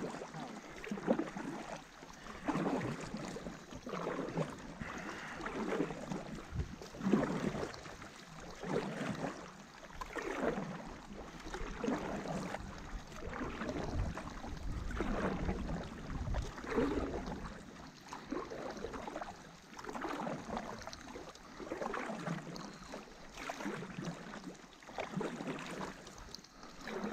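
Paddle blades dipping and pulling through the water in a steady rhythm, a splashing stroke about every one and a half seconds, from two paddlers on a tandem inflatable stand-up paddleboard.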